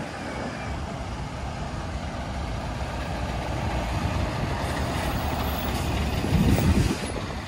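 Scania 580 articulated lorry's V8 diesel engine running as it pulls a loaded flatbed trailer towards the microphone and drives past close by. It grows steadily louder and is loudest about six and a half seconds in as the tractor unit passes, then falls away.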